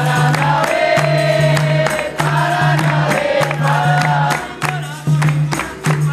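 Capoeira bateria music: berimbaus and pandeiros playing a steady, repeating rhythm while a group of voices sings the chorus.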